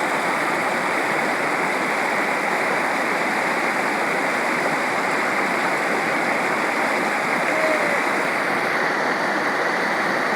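Swollen mountain stream in flood, its water rushing steadily and loudly.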